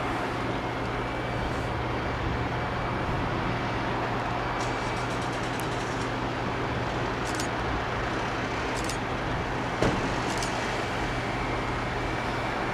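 Steady distant rumble of a taxiing Airbus A380's jet engines, with a faint steady whine over it. A few light clicks, and a soft thump about ten seconds in.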